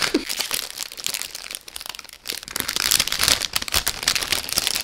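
Food packaging crinkling and rustling as it is handled and opened, a dense crackle of small clicks that is loudest around three seconds in.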